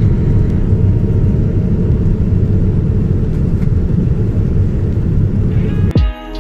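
Steady low rumble of a Boeing 787-9 airliner. It cuts off suddenly about six seconds in as music starts.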